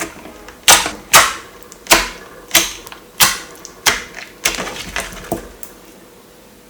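Water slime being pressed and squeezed by hand, giving about ten sharp, wet pops roughly every half second. They grow weaker and stop about a second before the end.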